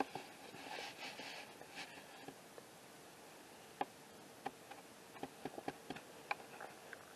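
Soft rustling, then a run of about a dozen light, irregular clicks and ticks, two of them sharper than the rest.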